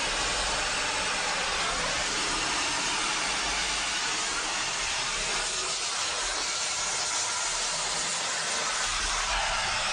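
Gas welding torch flame hissing steadily as it welds the joints of a steel-tube frame.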